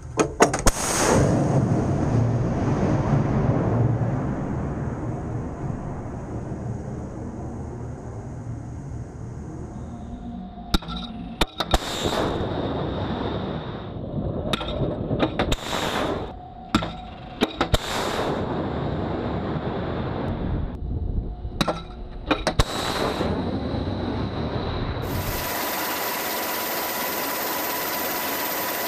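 RIM-116 Rolling Airframe Missile launching from the ship's deck launcher: a sharp crack, then a rocket rush lasting a few seconds that slowly fades. About ten seconds in comes a string of sharp blasts and short rushes, and near the end a steady hum with a thin high whistle takes over.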